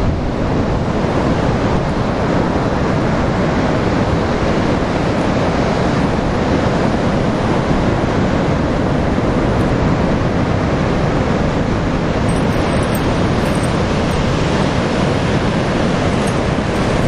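Steady roar of ocean surf breaking on a sandy beach, mixed with wind buffeting the microphone.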